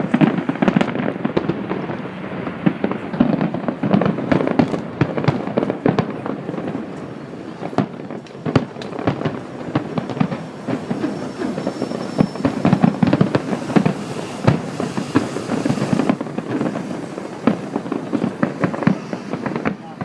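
Fireworks display going off: a dense, continuous crackle of bursting shells with many sharp bangs, loud throughout.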